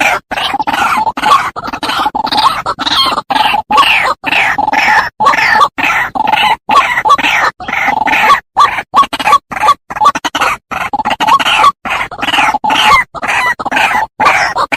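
White-breasted waterhen (ruak-ruak) calls played as a bird lure: harsh croaking notes repeated rapidly, about two to three a second, without let-up.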